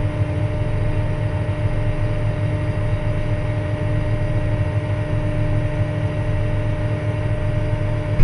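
Farm tractor engine running at a steady speed: a constant low drone with a faint steady hum above it.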